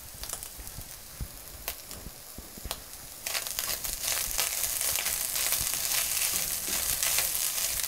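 Minced beef frying in a pan: a steady sizzle with scattered small pops. About three seconds in it gets suddenly louder as a spatula stirs tomato paste through the hot meat.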